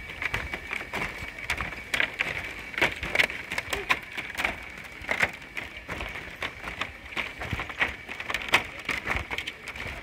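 Footsteps on the bamboo slats of a hanging footbridge: irregular clacks and knocks, several a second, over a steady high-pitched drone.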